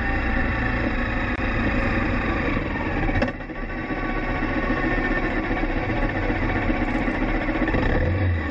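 Many motorcycle engines running together, the steady sound of a large motorcycle procession riding by, with a brief dip about three seconds in.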